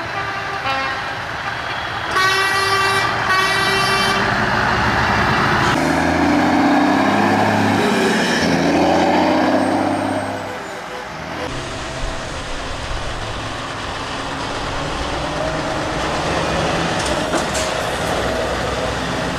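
Heavy trucks driving past, one sounding its air horn in two short blasts about two to four seconds in. A truck's diesel engine then passes loudly with its pitch rising and falling, and steadier engine and road noise follows.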